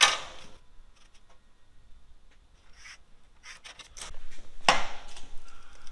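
Metal ruler and straightedge handled on a sheet of steel: a sharp scrape at the start and another, the loudest, about four and a half seconds in, with faint rubbing and scratching between.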